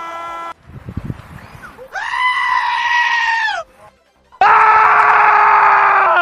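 Scream sound effects played back to back: a brief rough noise, then two long held screams. The second scream is louder and slides down in pitch as it cuts off.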